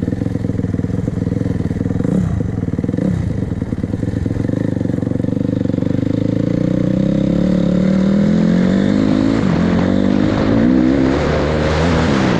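Rebuilt 2006 Honda CRF250R's single-cylinder four-stroke engine running on a ride. It holds a fairly steady pitch with a couple of quick throttle blips, then climbs in pitch as the bike speeds up, then rises and falls near the end.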